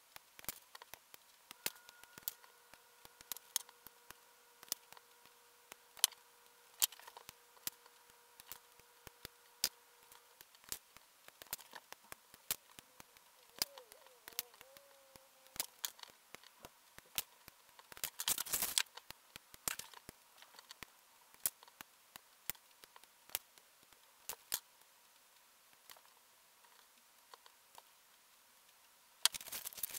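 Plastic model-kit parts being snipped from their runners and trimmed with side cutters: a dense, irregular string of sharp little clicks. There is a louder, longer clatter a little past halfway through.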